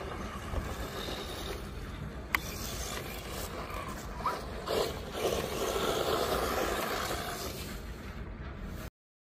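A 1:16-scale 4WD RC truck driving over dirt, its electric drivetrain and tyres loudest as it passes close by from about four and a half to seven seconds in. A steady low rumble runs under it, and there is a sharp click about two seconds in. The sound cuts off suddenly near the end.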